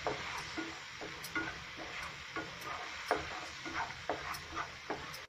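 A spatula stirring and scraping a spice masala around a non-stick frying pan, with short scrapes two or three times a second over a steady sizzle as the masala fries.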